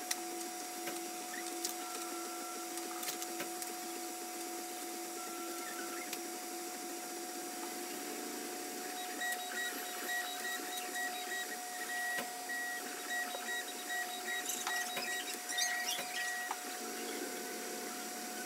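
3D printer running, its stepper motors whining in steady tones. Through the middle a choppier, higher-pitched tone pulses on and off, with a few faint clicks of small plastic parts being handled.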